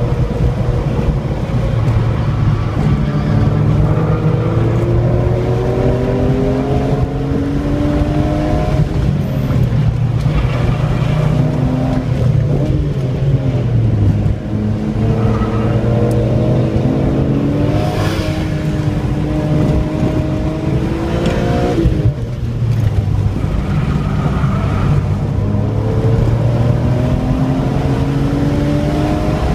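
2003 BMW M3's inline-six engine pulling hard on track, heard from inside the car. Its pitch climbs over and over as it accelerates out of corners, then drops back at shifts and lifts.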